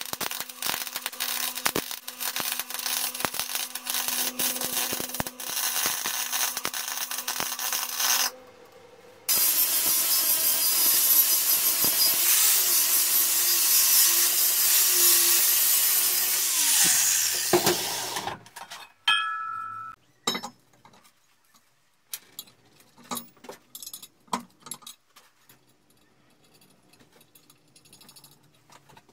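Electric arc welding crackles steadily over a low hum for about eight seconds. After a short pause an angle grinder grinds the edge of a steel base plate with a loud, steady hiss for about nine seconds, then winds down. Near the end come a few light metallic clinks and taps.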